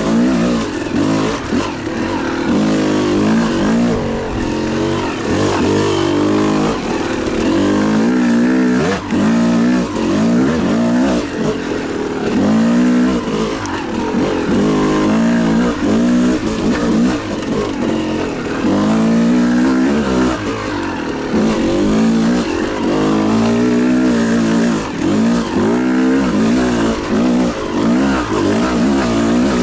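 Two-stroke dirt bike engine under hard riding, the revs climbing and dropping every second or two as the throttle is worked on and off, with a few brief lulls.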